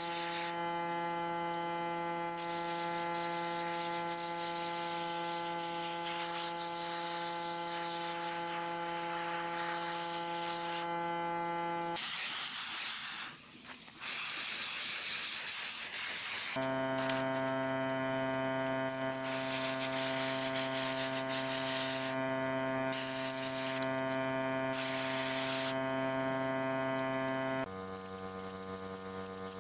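A small electric tool's motor running at a steady speed, its pitch jumping abruptly a few times. Partway through, the drone gives way for about four seconds to a steady hiss like spraying.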